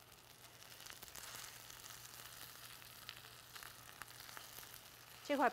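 Fish fillets sizzling steadily in hot oil in a cast iron skillet, with a few faint clicks of the spatula and wooden spoon against the pan.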